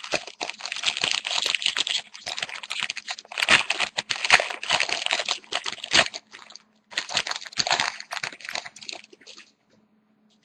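Foil wrapper of a hockey card pack crinkling and tearing as it is opened by hand, in irregular bursts with brief pauses, stopping about a second before the end.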